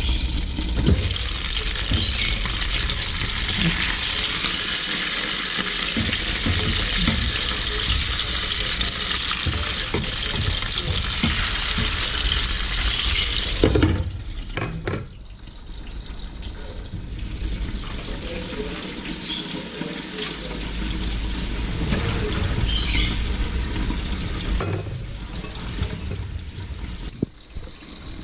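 Flour-dusted fish frying in hot oil in a covered pan, a steady sizzle. About 14 seconds in it drops sharply and carries on quieter, with a few small crackles.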